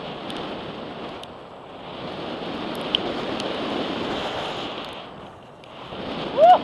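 Wind rushing over the microphone and tyres rolling fast over the gravel of a downhill mountain-bike track, with scattered clicks and rattles from the bike; the rush drops away briefly a little after five seconds. Near the end, a short loud shout that rises and falls in pitch.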